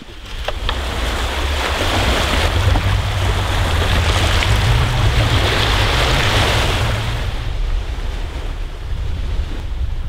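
Seashore ambience: waves washing on the shore with wind rumbling on the microphone. It swells to its loudest around the middle and eases off toward the end.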